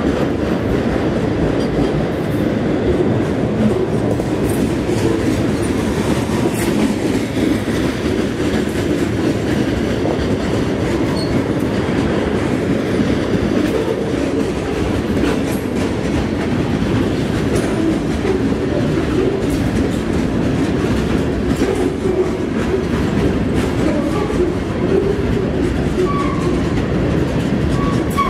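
Freight cars of a passing train rolling by at close range: a steady rumble of steel wheels on rail, with clickety-clack over the rail joints.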